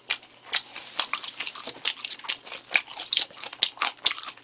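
A man biting into and chewing a piece of sauced chicken close to the microphone: irregular sharp crunches and mouth clicks, a few a second.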